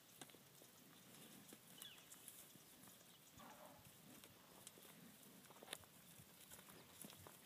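Near silence, with faint scattered footfalls of black cattle and a herding dog moving over dry dirt.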